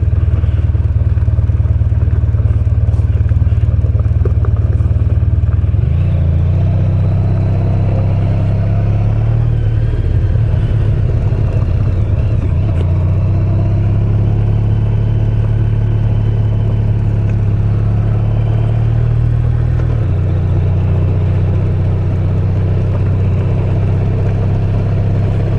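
Honda VFR1200X's V4 engine running steadily while the bike rides along a gravel road, with wind and road noise under it. The engine note changes pitch about six seconds in and again near twenty seconds.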